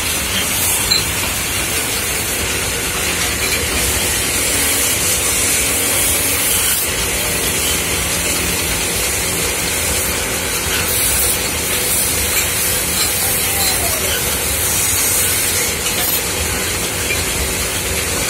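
Metal-spinning lathe running steadily with an aluminium pot turning on its spindle, under a low motor hum. A hissing rub swells and fades several times as a cloth is pressed against the turning metal.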